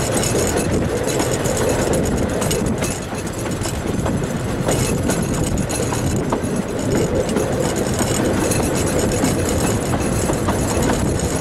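Narrow-gauge Talyllyn Railway carriage running along the line: a steady rumble of wheels on rails, with a few faint scattered clicks.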